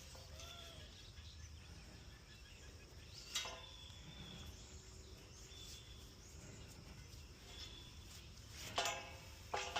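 Quiet background noise with a steady low rumble and faint, short high chirps every second or so, broken by a click about three and a half seconds in and a few sharper clicks and knocks near the end.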